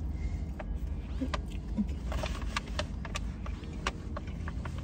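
Eating sounds: chewing with scattered small clicks and smacks as a plastic fork works a takeout burrito bowl, with a brief soft rustle about two seconds in. A steady low car hum runs underneath.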